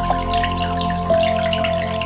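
Soft ambient music of long held notes, changing note about a second in, over a light patter of aquarium bubbles and water.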